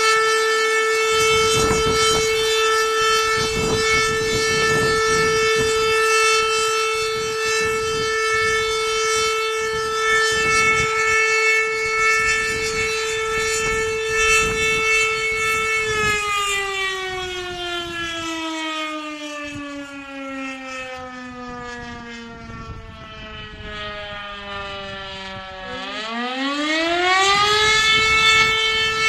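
Fire station siren sounding the call-out alarm for volunteer firefighters. It holds one steady wailing tone for about sixteen seconds, then slowly falls in pitch for about ten seconds and climbs quickly back up to the same tone near the end.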